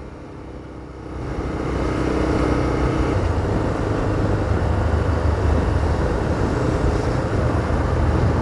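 Road and wind noise from a vehicle driving along city streets: a steady low rumble with a hiss over it, growing louder about a second in and then holding steady.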